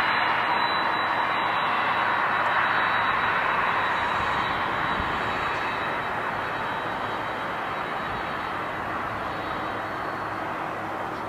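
Jet airliner engines: a broad, steady rush with a thin high whine on top, slowly fading as the aircraft moves away.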